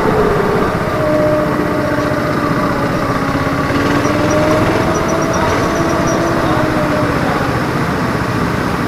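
Racing go-kart engine running at low revs as the kart rolls slowly, its pitch drifting gently up and down.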